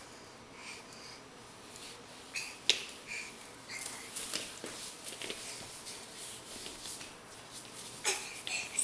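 Short breathy mouth sounds and sniffs, scattered, with one sharp click about a third of the way in.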